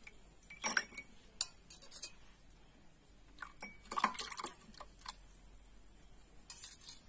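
A steel spoon clinks lightly and irregularly against a steel bowl and drinking glasses as ice and cold water are spooned into the glasses. A denser run of clinks and a short splash come about four seconds in, when water is poured from the bowl into a glass.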